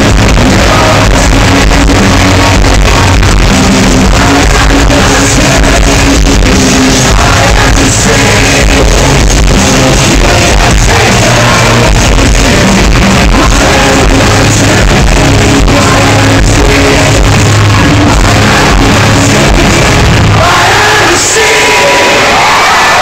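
A live rock band plays the closing bars of a song at high volume, heard from among the arena crowd through an overloaded phone microphone, so the sound is distorted. About twenty seconds in the band stops and the crowd cheers and shouts.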